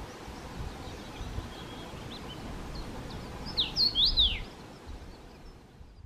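Male common rosefinch singing one short whistled phrase of slurred notes, rising and falling, about three and a half seconds in. It sounds over a steady hiss of background noise, with a few faint chirps before it, and fades out at the very end.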